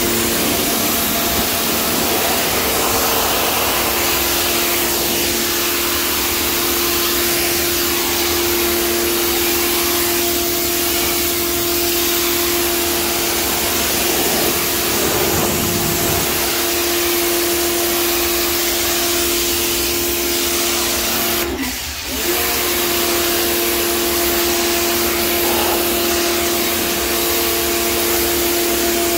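Pressure washer running, a steady motor-and-pump hum over the hiss of the water jet hitting the tiles. About three quarters of the way through, the motor briefly cuts out and winds back up.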